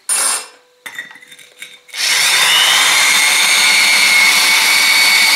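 Brief handling noises, then about two seconds in a power drill starts and runs steadily, its hollow core bit grinding into the wet, glazed ceramic base of a pot.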